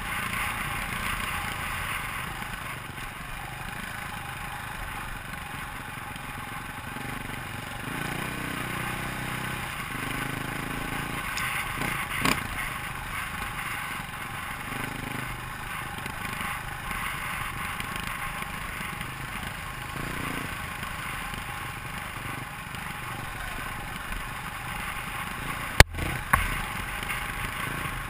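KTM dirt bike's engine running steadily at trail speed, heard from a helmet-mounted camera. Two sharp knocks cut through, one about halfway and a louder one near the end.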